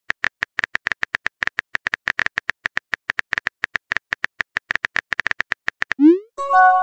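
Simulated phone keyboard clicking rapidly and evenly, about six or seven taps a second, as a text message is typed. Near the end a quick rising swoosh and a short chime of several tones mark the message being sent.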